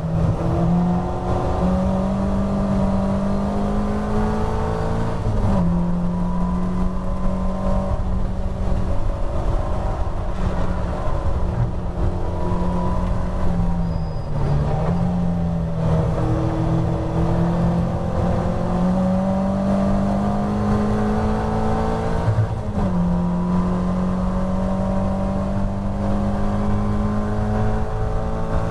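Onboard sound of a Caterham Roadsport's Ford Sigma four-cylinder engine running hard at high revs, over wind and road rumble. The engine note steps abruptly at gear changes about five and twenty-three seconds in and dips briefly about fourteen seconds in before climbing again.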